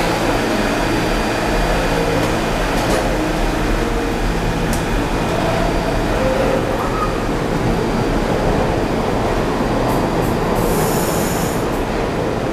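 New York City subway train noise at a station platform: a steady, loud rumble with a low hum, and a brief high-pitched squeal about ten and a half seconds in.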